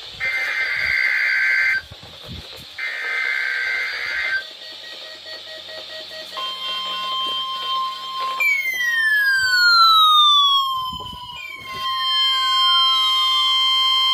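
Weather alert radios activating on an EAS Required Weekly Test. Two bursts of the screeching digital SAME header data sound, then a steady long alert tone comes in about six seconds in. About two seconds later a second radio's siren joins it: a falling sweep that repeats about every three seconds.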